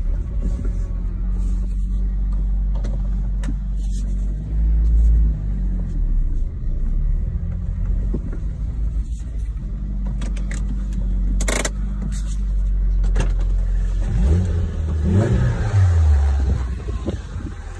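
1989 Toyota MR2 supercharged's 4A-GZE four-cylinder running through a Fujitsubo aftermarket exhaust, heard from inside the cabin. It idles steadily, with a short rev about five seconds in and the note rising and falling again near the end.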